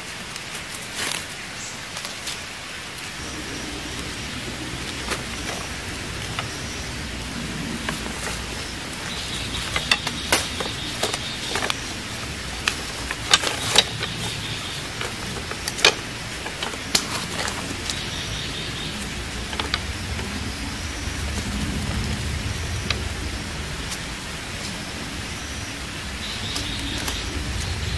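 Thin wooden sticks clicking and knocking together as they are gathered and lashed into a stick cage trap, scattered irregularly over a steady hiss of background noise.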